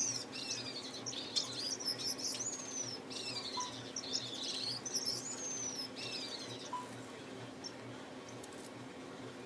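Male Gouldian finch singing: a high, thin song of downward-sweeping notes and buzzy trills in several short phrases, fading out about seven seconds in.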